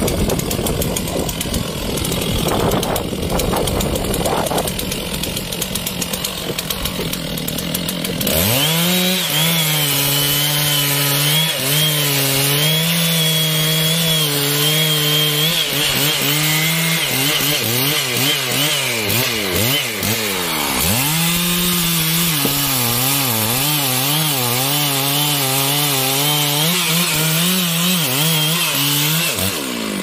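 Large Stihl two-stroke chainsaw, idling at first, opens to full throttle about eight seconds in and saws into the base of a trembesi (rain tree) trunk at a steady high pitch. Partway through, the engine pitch dips and wavers up and down under the load of the cut, then steadies again. The throttle is released right at the end.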